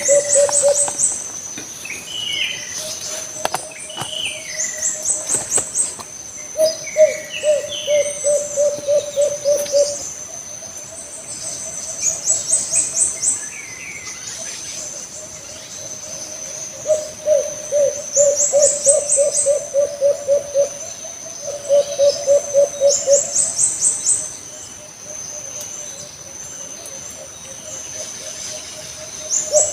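An alimukon dove, a collared dove, calling over and over with low, rolling, trilled coos of one to three seconds each, with short pauses between. A steady high insect drone and a few small-bird chirps sound behind it.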